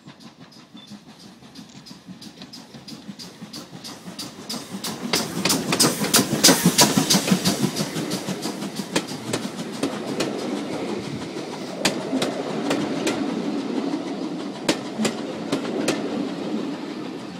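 GWR 5205 class 2-8-0 tank steam locomotive passing close by, growing louder as it approaches and loudest as the engine goes past, with sharp clicks. Its carriages then roll past with a steady rumble and the clickety-clack of wheels over the rail joints.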